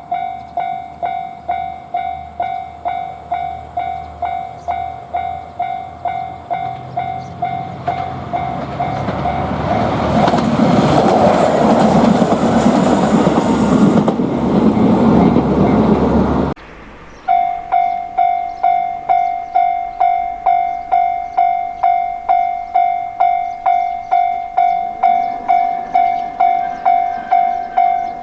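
Japanese railroad-crossing warning bell ringing in a steady, fast repeating "kan-kan", about two strikes a second. A diesel limited-express train builds up and passes through the crossing with a loud rumble and wheel noise that drowns the bell. Its sound cuts off suddenly about 16 seconds in, and the bell carries on alone.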